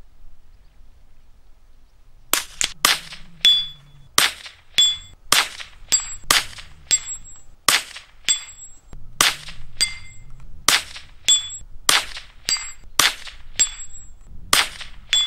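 A small steel shooting target struck again and again by small-calibre shots: about twenty sharp cracks, roughly two a second, starting about two seconds in, each leaving a short high metallic ring from the plate.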